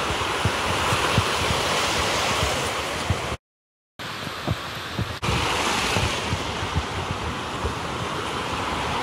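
Fast mountain stream rushing steadily over rocks, with wind buffeting the microphone. The sound drops out completely for about half a second a third of the way in.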